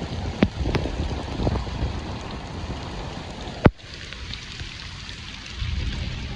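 Rain falling, a steady hiss with a low rumble and a few sharp drop clicks. A loud click comes a little over three and a half seconds in, and after it the rain is quieter.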